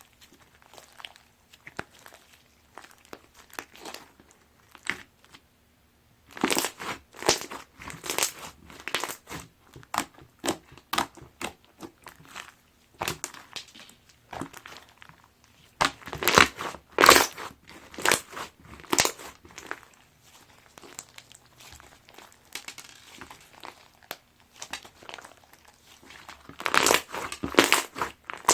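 Crunchy cereal slime being squeezed and kneaded by hand, crackling and crunching in irregular bursts. Sparse and faint at first, it gets dense and loud after about six seconds, with the loudest bursts past the middle and near the end.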